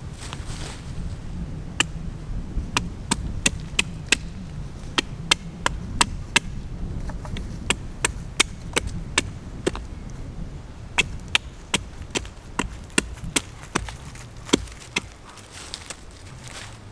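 Small axe chopping into wood: a run of sharp, separate strikes, roughly two a second, starting about two seconds in and stopping a couple of seconds before the end, over a low rumble of wind.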